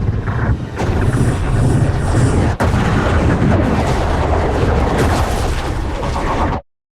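Loud rumbling blast sound effect, heavy in the low end. It has a brief break with a sharp crack about two and a half seconds in, and it cuts off suddenly near the end.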